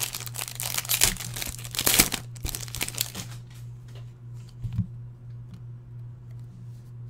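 Foil trading-card pack wrapper being torn open and crinkled, dense crackling for about the first three seconds, then dying down to a few faint ticks and rustles as the cards are handled.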